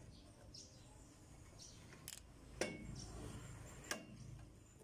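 Metal clicks and clinks from a drum-brake shoe and its stiff return spring being worked into place on an Isuzu Elf truck's rear brake: a few sharp clicks, about two seconds in and again near four seconds.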